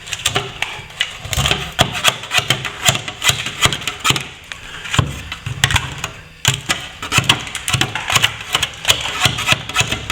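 Hand tool scraping and chipping at old plaster, an irregular run of quick scrapes and knocks, digging loose plaster and tape out of a failed joint between plasterboard and brick wall.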